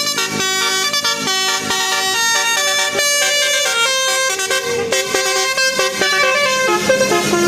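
Telolet Basuri musical air horn on a tour bus playing a quick tune of short stepped notes, sometimes several pitches at once.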